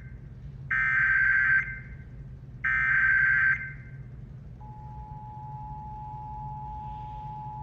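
Emergency Alert System broadcast on FM radio. First come two bursts of SAME header data tones, each a harsh buzzing screech about a second long with a second's gap between them. Then, about four and a half seconds in, the steady two-tone attention signal starts and holds, announcing the alert.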